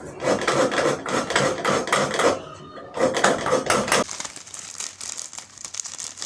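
A coconut half scraped by hand on a grater, a quick run of scraping strokes with one short pause. For the last couple of seconds a plastic bag crinkles as it is opened.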